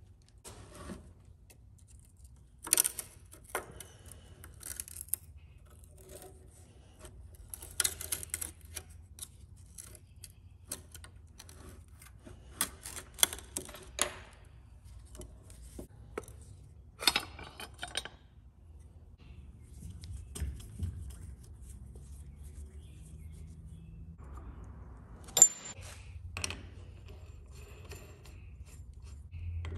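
Metal tools and shock hardware clinking and rattling in short clusters of sharp clicks, with quiet gaps between them, as a Harley-Davidson Softail rear shock is worked on and its adjustable lowering link fitted. A low steady hum runs underneath.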